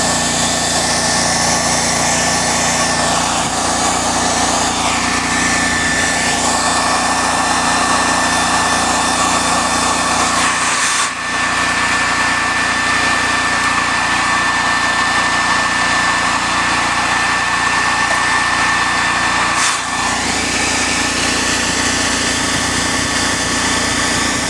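An engine-driven welder's engine running steadily at constant speed, with a steady high whine over the engine noise. The sound dips out briefly twice, about 11 and 20 seconds in.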